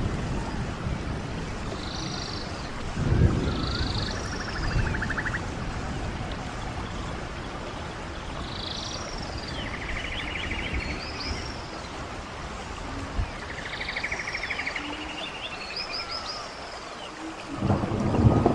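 Stream running steadily with birds calling over it: short arching whistled notes repeated again and again, and buzzy rapid trills. A louder low rumble comes about three seconds in and again near the end.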